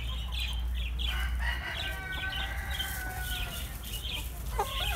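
A rooster crowing one long drawn-out crow, over short high clucks and calls from hens; a second crow begins near the end.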